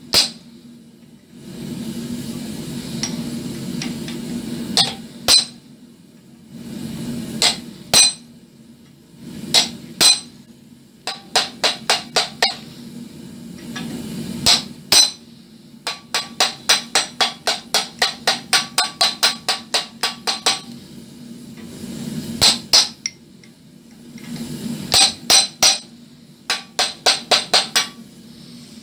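Hand hammer striking a steel tool held against red-hot wrought iron in a vise, ringing metallic clinks. Single blows at first, then runs of quick light taps of about four to five a second.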